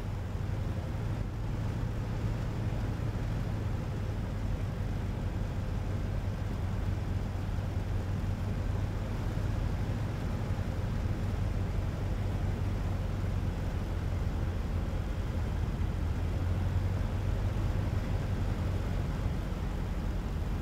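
Radial engines of a 1929 Ford Tri-Motor running in a steady low drone, heard from inside the cabin as the plane comes in to land.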